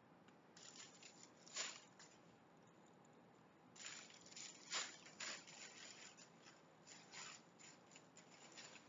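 Faint rustling and scratching from a cat playing with a string toy on carpeted stairs: a string of short scuffs, the loudest about one and a half and five seconds in.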